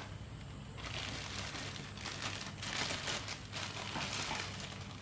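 Rustling and crinkling of packaging as a fishing reel's box is opened and unwrapped, in irregular scratchy spells over a steady low background hum.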